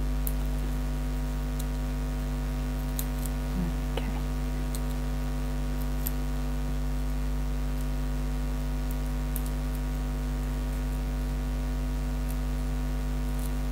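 Steady electrical mains hum, with a few faint, brief clicks from hands working small foam pads onto card.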